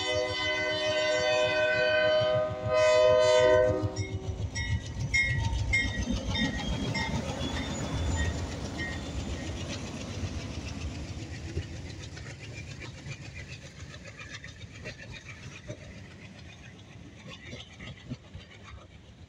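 Diesel locomotive's air horn blowing for the grade crossing: a long blast, then a brief break and a shorter, louder blast ending about four seconds in. Then the train rumbles through the crossing, its wheels clicking over the rail joints, and the sound slowly fades as it rolls away.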